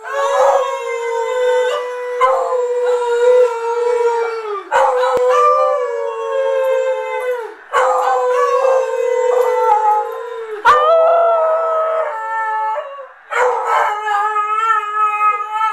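Beagle howling: about five long howls in a row, each held for a few seconds on a steady pitch and sliding down at the end, with short gaps between.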